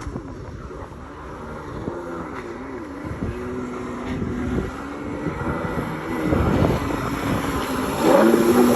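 Kawasaki 650 SX stand-up jet ski's two-stroke twin engine running on the water, its pitch rising and falling as the throttle is worked, and getting louder near the end.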